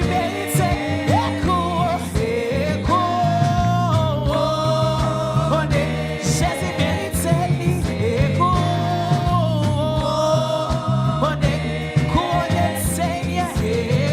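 Gospel praise-and-worship music: voices singing a song over instrumental backing with a stepping bass line.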